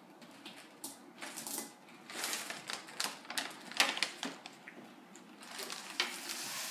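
Plastic snack bags crinkling and rustling as they are handled, with irregular clicks, and sour jelly beans dropping into a ceramic bowl at the start.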